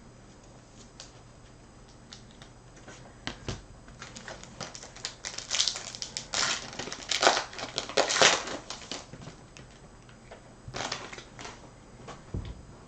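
Crinkling and crackling of a Topps Chrome trading-card pack's foil wrapper being torn open and the cards handled. It builds up a few seconds in, is loudest in the middle and dies away near the end.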